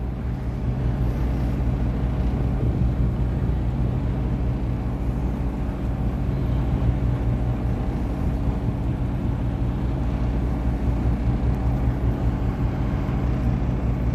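Boat engine running steadily, a low hum with no change in pitch.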